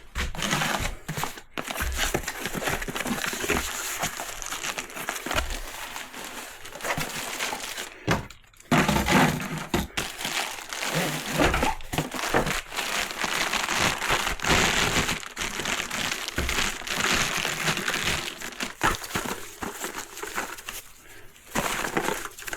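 Plastic packaging crinkling and rustling as it is opened and handled to get out a set of metal RC tracks, with a short pause about eight seconds in.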